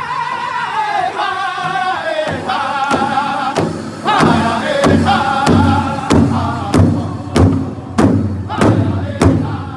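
Powwow drum group singing together in a high, strained unison while beating a large hide powwow drum with drumsticks. The melody falls early on, and from about four seconds in the drumbeat comes through strong and even, a little under two strokes a second.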